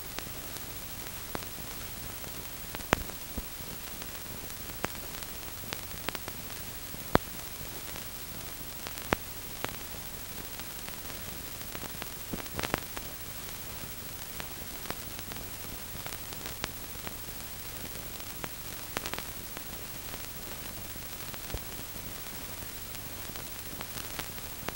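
Steady hiss of an old film soundtrack, broken by irregular sharp clicks and crackles scattered through it.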